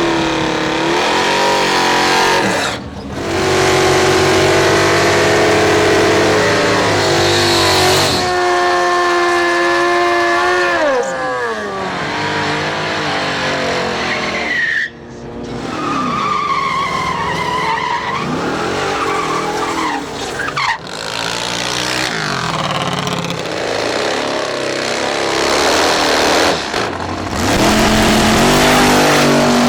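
Drag-racing cars' engines revving hard, the pitch climbing and dropping, with tyre squeal from burnouts. The sound comes as a series of short clips, several cutting off abruptly.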